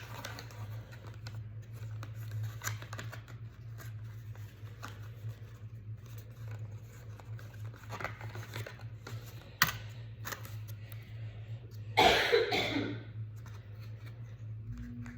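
Small clicks, scratches and rustles of a pocket watch and its cardboard packaging being handled and fitted back into its little box, over a steady low hum, with a sharp click partway through and a louder brief rustle or burst near the end.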